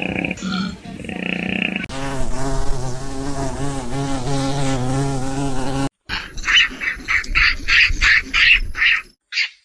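A flying insect's steady buzz, wavering slightly in pitch, lasting about four seconds. After a sudden cut comes a run of short, high chirps, about three a second.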